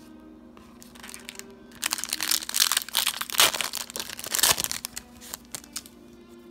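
Foil trading-card booster pack wrapper being torn open and crinkled by hand: a dense spell of crackling rustle from about two seconds in, lasting about three seconds.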